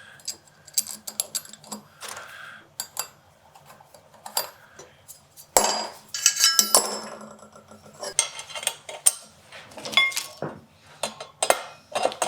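Small metal parts clinking and knocking against each other and a hard surface as they are handled: many separate sharp clicks, a few ringing briefly, likely the steel hardware of a Twin Turbo vise being fitted.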